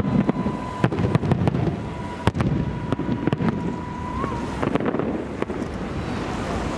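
Aerial fireworks salute going off: a rapid, irregular series of sharp bangs and cracks from bursting shells. The bangs stop about five and a half seconds in, leaving a steady rushing background.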